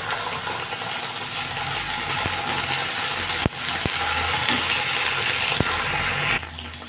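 Onions and ginger-garlic paste sizzling in hot oil in a kadai while a wooden spatula scrapes and stirs them, knocking against the pan a few times. The sizzle drops away sharply near the end.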